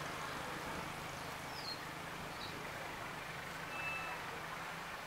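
Diesel locomotive approaching in the distance, its engine a steady low rumble under an even outdoor hiss. Two faint high chirps come in the first half, and a short high tone about four seconds in.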